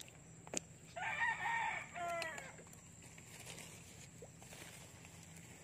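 A rooster crowing once, starting about a second in and lasting about a second and a half, the last part of the crow drawn out.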